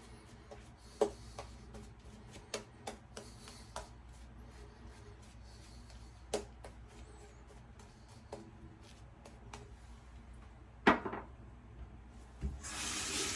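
Scattered light clicks and taps of shaving gear being handled, with one sharper knock about eleven seconds in. A water tap starts running into the sink near the end.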